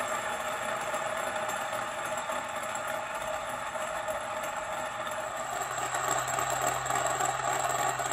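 Large thrust bearing spinning freely after a hand spin, its five half-inch steel balls rolling in the grooved races. It makes a steady rolling rattle with several ringing tones held throughout.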